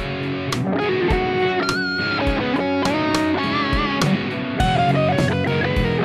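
Music: a song in an instrumental passage, with a guitar lead playing held notes over chords and a steady drum beat.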